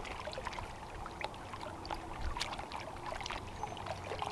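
Water lapping gently at the shore, with scattered small clicks and ticks as a fishing pole and line are handled.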